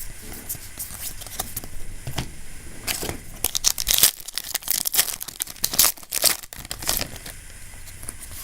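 A foil trading-card booster pack being torn open and its wrapper crinkled: irregular sharp crackles, densest in a flurry in the middle.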